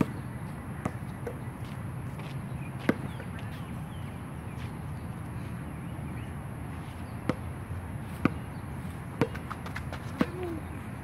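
Basketball bouncing on a hard court: sharp single bounces at irregular spacing, coming about once a second in the last few seconds, over a steady low background noise.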